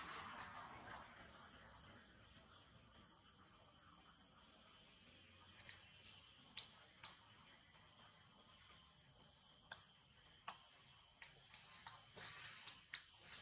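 Steady high-pitched insect chorus, a constant even whine, with a few faint short clicks scattered through the second half.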